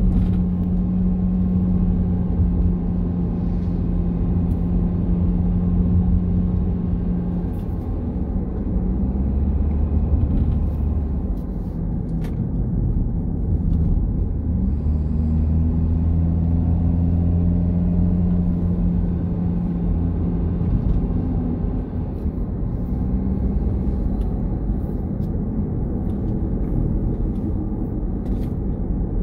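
Car engine running while driving, heard from inside the cabin, with a steady low hum whose pitch shifts a few times as the revs change, over continuous road rumble.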